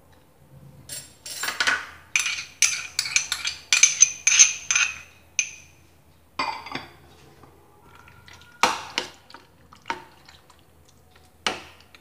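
A metal spoon clinking and scraping against a glass bowl and a stainless steel bowl as curd is scraped out and stirred into chopped chicken. There is a quick run of clinks and scrapes in the first half, then a few single knocks.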